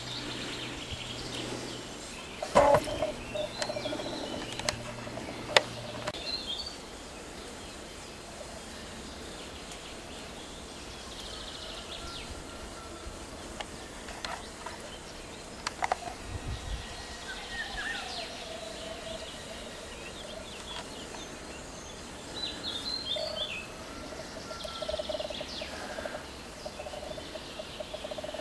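Birds calling outdoors: scattered high chirps and a lower, wavering call that comes and goes several times, with a few sharp clicks in between.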